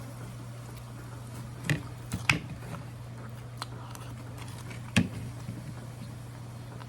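Someone eating crab: several sharp clicks and cracks of shell and chewing, the loudest near two and a half seconds and five seconds in, over a steady low hum.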